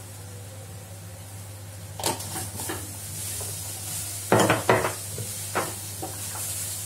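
Stainless steel spice canisters being handled and set down on a granite countertop: a run of metal clinks and knocks starting about two seconds in, the loudest cluster about halfway through. A steady low hum runs under it.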